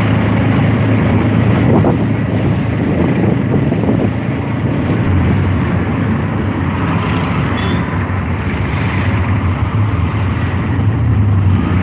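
Steady low engine hum and road noise of a moving vehicle, heard from on board, with some wind on the microphone.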